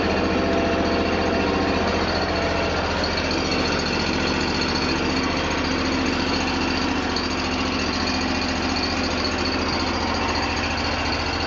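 The original Honda gasoline engine of a 1998 Terramite T5C compact backhoe running steadily, with an even low hum and vibration.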